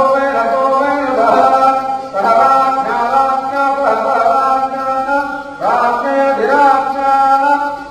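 A man's voice chanting Hindu ritual mantras in a steady, sing-song recitation held on sustained pitches, with fresh phrases starting every second or two.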